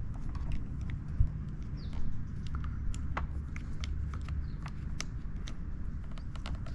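Scattered light clicks and taps of plastic parts being handled as a charging cord is fitted into a Quad Lock wireless charger phone mount, with a thump about a second in. A steady low rumble runs underneath.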